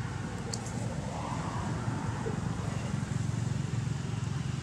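Steady low rumble of distant motor traffic, with a couple of brief high clicks about half a second in.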